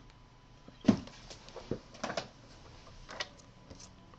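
A few light taps and clicks from paper cutouts and a tape dispenser being handled on a cutting mat, the sharpest about a second in.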